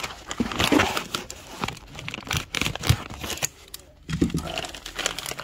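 Plastic packaging bag crinkling and rustling in irregular bursts with a few sharp clicks, as it is handled and scraped at with a utility knife whose blade is too dull to cut through it.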